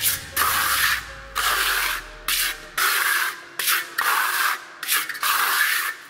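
Steel trowel scraping over a microcement floor in repeated short back-and-forth strokes, about one or two a second, as the coat is polished.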